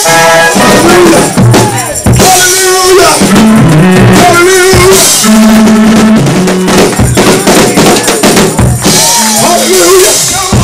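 Loud live gospel praise-break music: a drum kit played hard with cymbals and bass drum, over held keyboard notes.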